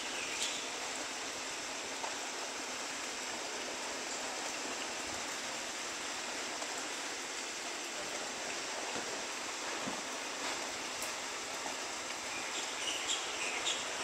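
Steady rain falling on grass and trees, an even hiss, with a few brief louder ticks near the end.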